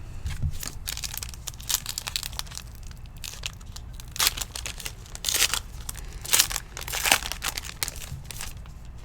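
Trading card pack wrapper crinkling and tearing as it is ripped open and handled, with irregular crackles and a few louder sharp rips in the middle.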